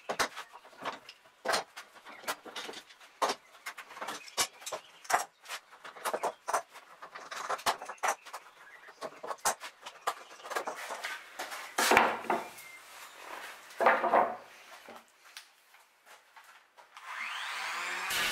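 One-handed bar clamps being set and squeezed tight on a glued-up wooden mast, a run of sharp clicks and clatters with a couple of longer rasping stretches. Near the end an electric hand planer starts up, its motor spinning up to a steady run.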